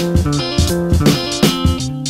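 Instrumental hip-hop beat: a plucked guitar figure and bass line over steady drum hits.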